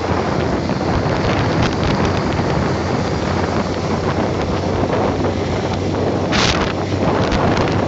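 Wind rushing over the microphone of a motorcycle riding at speed, with a steady low hum underneath. A brief hiss comes about six and a half seconds in.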